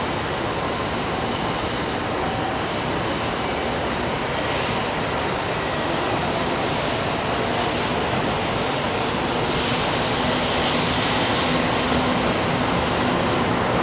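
Two coupled KiHa 25 diesel railcars approaching slowly, their diesel engines and running gear a steady noise that grows gradually louder, with a low steady hum coming in about nine seconds in.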